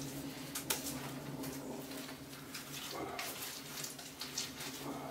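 Small sticks clicking and rattling as they are pushed into the feed tube of a rocket stove, with the newly lit kindling crackling and a steady low hum underneath.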